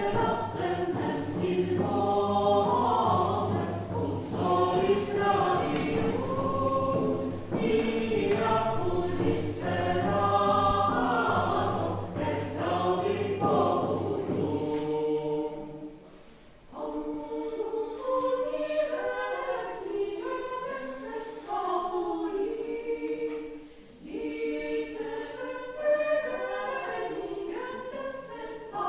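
Choir singing sacred music with pipe organ accompaniment; the organ's held bass stops about halfway through and the choir goes on alone, with a brief pause about two-thirds of the way in.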